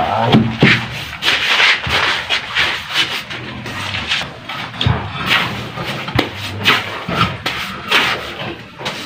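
Rough rubbing strokes by hand on a hard surface, coming unevenly about one to two a second, with a couple of light knocks among them.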